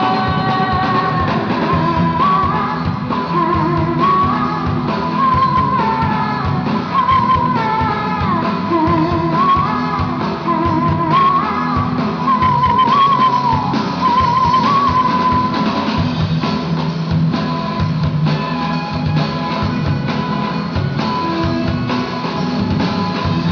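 A live rock band playing a song: guitar and drums under a lead melody that wavers in pitch.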